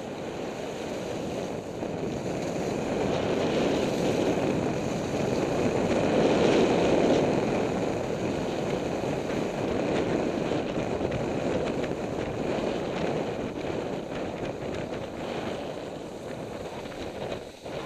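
Wind rushing over the microphone of a skier gliding downhill, a steady rush that swells louder a few seconds in and then eases off.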